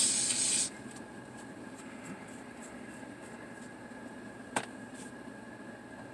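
A person's short, loud breathy hiss at the start, then a quiet room with one sharp click about four and a half seconds in.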